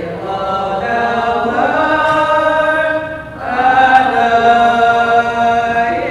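Voices singing a slow hymn in long held notes, with a brief dip between phrases a little past the middle.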